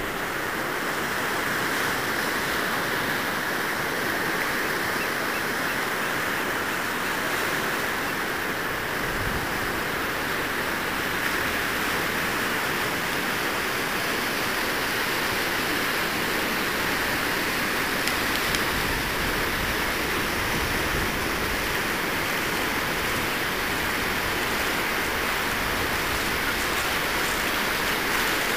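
Ocean surf washing on a sandy beach, a steady rush of noise with no single wave standing out.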